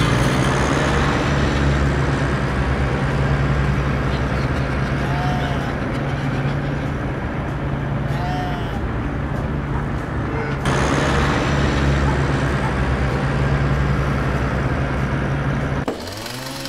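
Added sound effect of a tractor's diesel engine running steadily with a low drone, giving way to music near the end.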